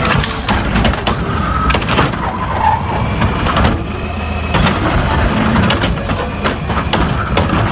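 Plastic toy garbage truck being washed by hand in water: a steady mix of splashing and rubbing, with many small clicks and knocks of the plastic.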